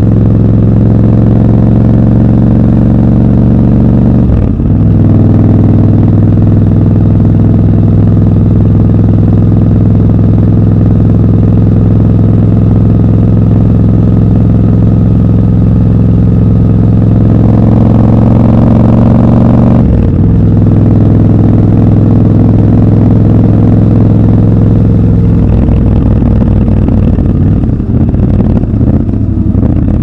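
Triumph Scrambler 1200 XC's parallel-twin engine running steadily under load, with two brief breaks for gear changes, about four and twenty seconds in. Its pitch climbs just before the second break, and near the end the note turns uneven and rougher as the bike slows.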